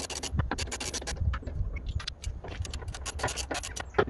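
Quick irregular runs of metallic clicking and scraping from a ratchet spanner undoing the door bolts and castle nut on a car door, with one sharper click near the end, over a low rumble.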